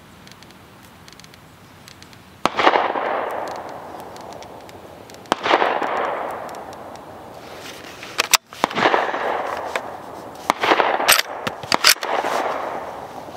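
Several rifle shots, each a sharp crack followed by a long rolling echo. The first comes about two and a half seconds in, the next ones about three seconds apart, and the last few closer together near the end. Among them is a Barrett MK22 bolt-action sniper rifle firing .300 Norma Magnum.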